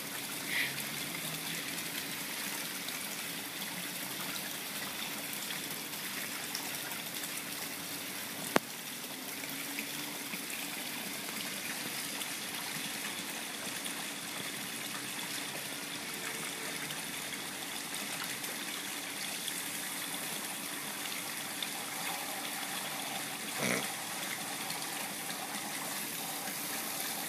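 Pool water features splashing steadily, an even rush of falling water into the pool. A single sharp click about a third of the way through.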